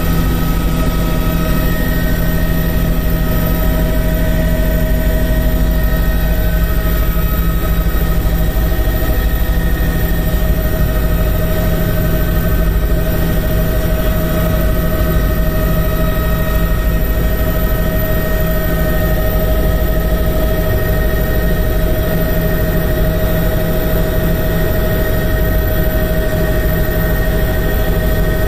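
Steady, unchanging engine drone with a deep rumble and a few held tones.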